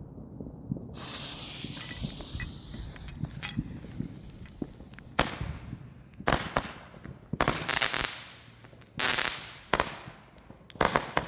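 Fireworks going off. From about a second in there is a high hiss with a wavering whistle, then a run of about eight sharp bangs, each trailing off, spaced roughly a second apart.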